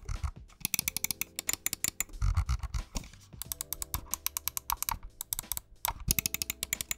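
Logitech G Pro X Superlight wireless gaming mouse being clicked and scrolled: quick runs of sharp button clicks and scroll-wheel ticks in clusters, with a dull low thud a little over two seconds in.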